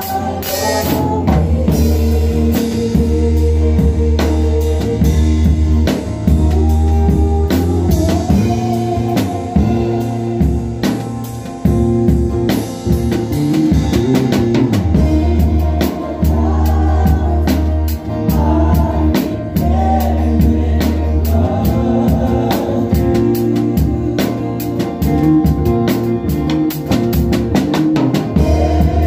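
Drum kit played live with sticks, keeping a steady beat on drums and cymbals within a full worship band, with voices singing over it.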